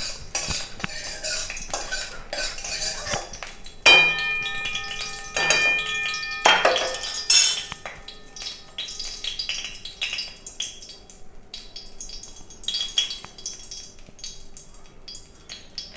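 Metal kitchen utensils clinking and knocking against cookware. About four seconds in, a struck metal piece rings with a clear tone for over two seconds, then lighter clicks and ticks follow.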